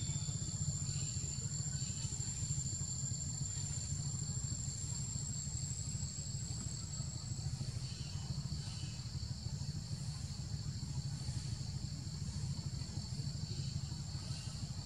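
Outdoor ambience of insects buzzing, with two steady high-pitched tones that pulse softly, over a steady low rumble.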